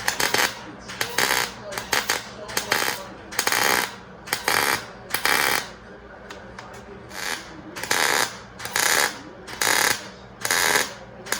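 Miller 140 MIG welder laying a run of short tack welds: about a dozen brief crackling bursts, each under half a second, with short gaps between them.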